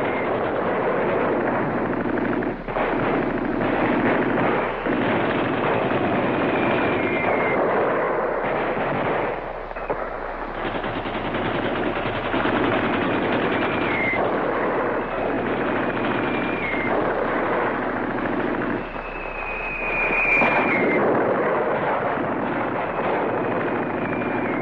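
Continuous automatic rifle fire in dense, overlapping bursts, presented as AK-47 fire in a war-scene sound effect. Short, slightly falling whistles cut through it several times.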